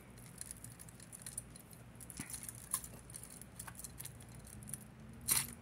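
Metal jewelry chains and beads softly clinking and jangling as a tangled necklace is worked loose by hand, with a sharper clink near the end.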